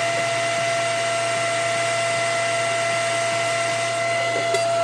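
Table-mounted router spinning freely at full speed, not yet cutting: a steady high whine over a rushing hiss.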